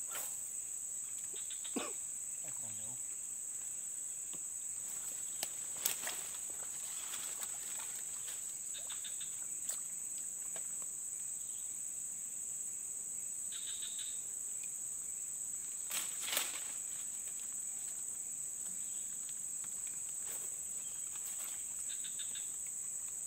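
Steady, high-pitched drone of insects from the waterside vegetation, with a few sharp clicks over it, the loudest about six seconds in and again around sixteen seconds.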